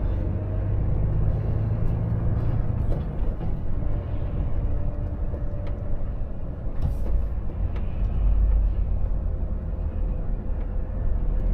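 Volvo FH460 truck's 13-litre six-cylinder diesel, heard from inside the cab while driving slowly in town: a steady low engine drone mixed with road and tyre noise.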